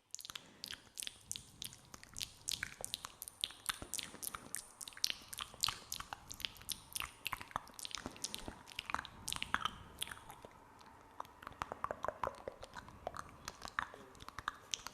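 Close-miked ASMR mouth sounds: sticky, wet mouth clicks and smacks in a quick, dense, irregular run.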